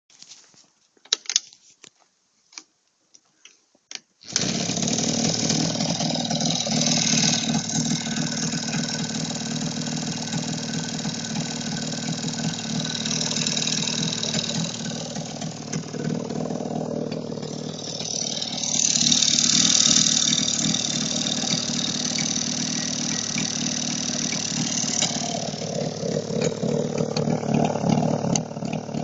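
Jawa 350 type 638 two-stroke twin engine: a few sharp clacks, then it starts about four seconds in and runs on with a knock in the engine. The revs rise briefly a little past halfway through.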